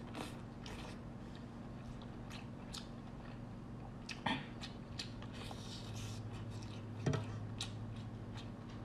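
A person chewing crab leg meat, with soft wet clicks and smacks. Two sharper clicks come about four and seven seconds in, over a faint steady low hum.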